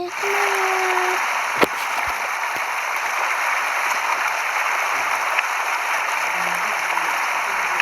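Steady rushing, splashing water noise that starts abruptly, with a short low hum in the first second and a single click a little later.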